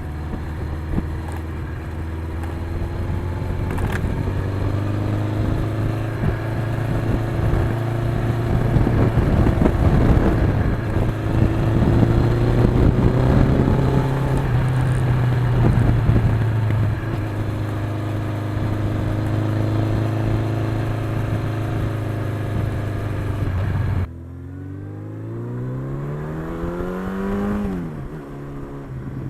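1982 Suzuki GS1100E's air-cooled inline-four engine running steadily at cruise under heavy wind rush. About 24 seconds in, the wind noise drops away and the engine climbs in pitch for about three seconds, then falls sharply as it shifts up a gear.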